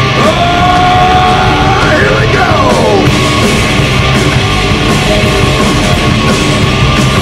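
Heavy metal band playing live through a PA: distorted electric guitars, bass and drums, loud and dense. Just after the start a high note is held, then rises and falls away about two seconds in.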